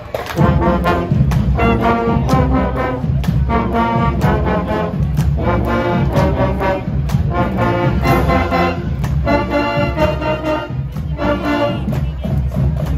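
Marching band brass, trombones and baritone horns, playing a tune loudly over a steady beat, coming in about half a second in.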